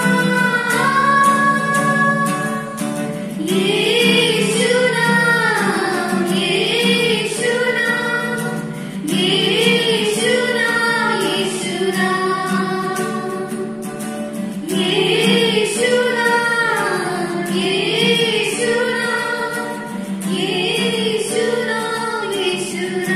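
Three women singing a worship song together into hand-held microphones, phrase after phrase rising and falling over a steady low accompaniment.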